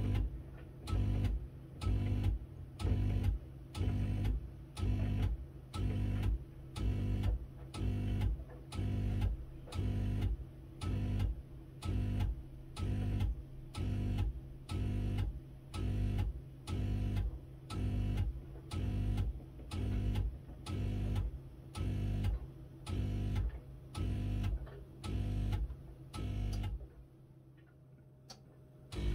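Miele W1 washing machine running with a rhythmic pulsing hum, about three pulses every two seconds, which stops for a couple of seconds near the end and then starts again.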